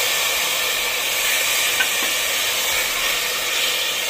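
Steady sizzle of chopped tomatoes frying in hot ghee with onions in a stainless steel pressure cooker, just added and being stirred with a spatula.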